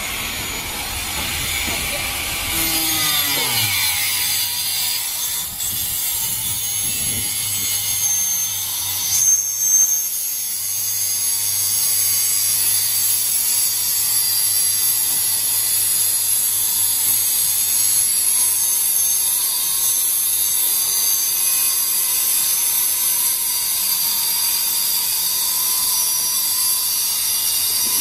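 Electric hand drills running with a steady high-pitched whine and grinding noise as they work into the steel-faced EPS sandwich panels, with a couple of louder bumps about ten seconds in.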